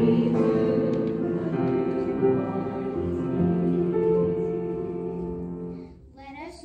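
Voices singing with piano accompaniment, a song ending on a long held chord that fades away about six seconds in.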